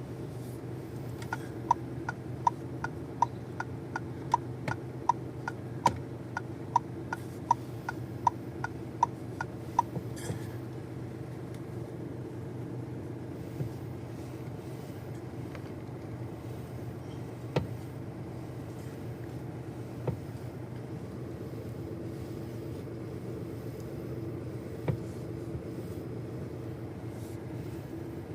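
Fiat Fastback engine idling steadily with the car standing. For the first ten seconds or so it is joined by an even run of sharp, ringing ticks, a little over two a second, then by a few single knocks spaced several seconds apart, while the owner listens for a noise in the steering.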